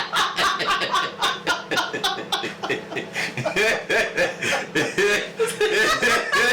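People chuckling and laughing, with some talk mixed in.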